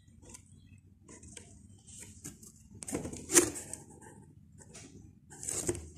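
Small handling noises: scattered rustles and light knocks, with one sharper knock about three and a half seconds in.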